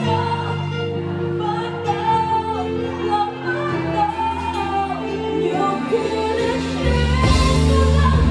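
A live band playing a song, with electric bass guitar, drums and a singer. About seven seconds in, the band gets louder, with a heavier low end.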